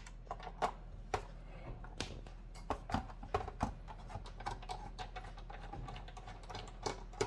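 Irregular small clicks and taps of a screwdriver and just-removed small screws being handled against the monitor's metal housing and board, over a low steady hum.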